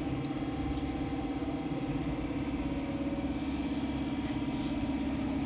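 A motor running steadily, with an even low drone and a fast, regular pulse.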